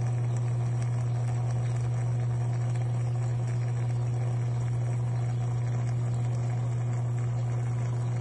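Aquarium water pump running with a steady low hum.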